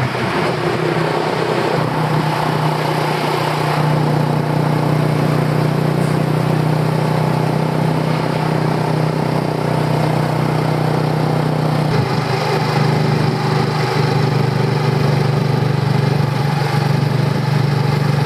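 Motor scooter engine running steadily while riding along with a sidecar attached, with road and wind noise; the steady hum shifts slightly about twelve seconds in.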